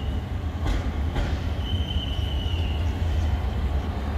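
KZ4AC electric locomotive running light past the platform, a steady low rumble. Two short clacks come about two-thirds of a second and a second in. A thin high squeal lasts about a second near the middle.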